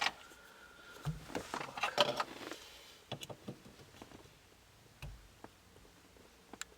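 Scattered light clicks and short scrapes of a hand tool working at the bolts that hold a steering wheel to its hub, one bolt head partly stripped. The clicks and scrapes bunch together in the first couple of seconds, then come singly and further apart.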